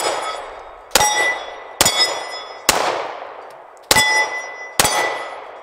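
Gen 4 Glock 21 .45 ACP pistol fired five times at a steady pace, about one shot a second. Each shot is followed by the ringing clang of a steel plate target being hit.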